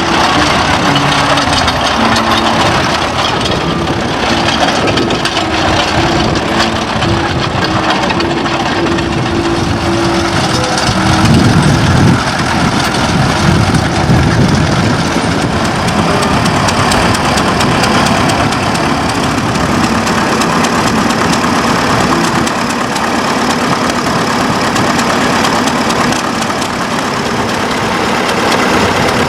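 Vintage tractor and crawler engines running steadily, with a louder, deeper surge of engine noise a little before halfway.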